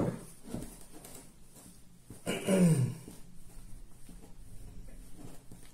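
Faint wet squishing of cake batter being mixed by hand in a steel bowl as chocolate liquid is poured in, with one short call falling in pitch about two seconds in.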